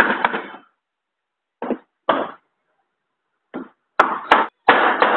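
A few irregular knocks and clatters as a scooter engine's crankshaft is worked into its crankcase half, ending in two sharp knocks about four seconds in as it seats.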